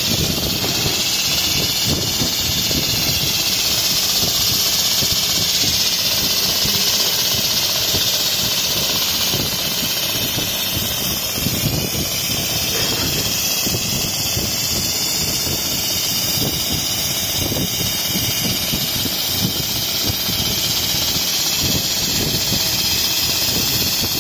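Richpeace computerized non-stop sewing machine running steadily as it stitches a quilted pattern, its needle mechanism chattering in a fast, even stream, with a steady high hiss over it.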